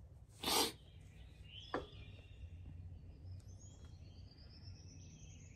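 Quiet outdoor background with faint, distant bird chirps, a short soft rustle about half a second in and a faint click a little later.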